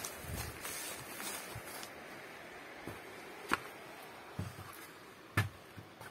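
Soft footsteps of someone walking into a small stone hut, with two sharp knocks about three and a half and five and a half seconds in, over quiet room tone.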